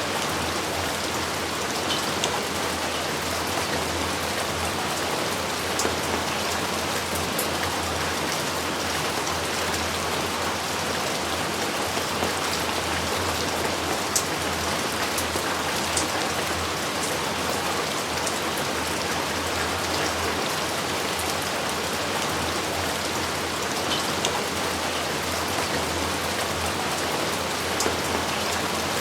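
Steady heavy rain falling, a dense even hiss with scattered individual drops ticking.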